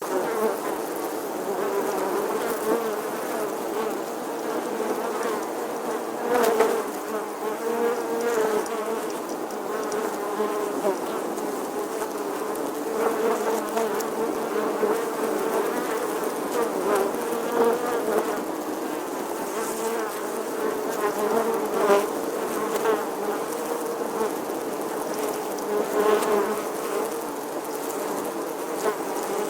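Bees buzzing: a steady drone that wavers slightly in pitch, with a few brief louder swells.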